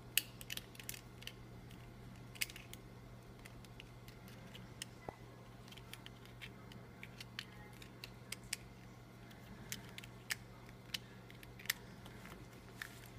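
A steady low hum with irregular sharp clicks and taps, about one or two a second, the loudest right at the start.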